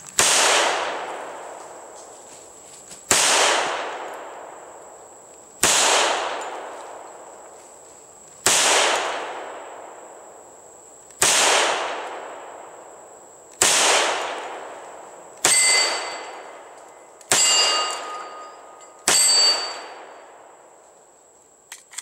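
Hi-Point .45 ACP pistol fired nine times, emptying a nine-round magazine. Each shot is a sharp crack with a long echoing tail. The first six come about two and a half to three seconds apart, and the last three come quicker, under two seconds apart, each followed by a brief metallic ring.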